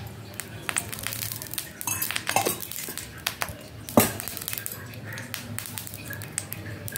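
Kitchen clatter: scattered light clicks and clinks of pots and utensils, with one louder knock about four seconds in.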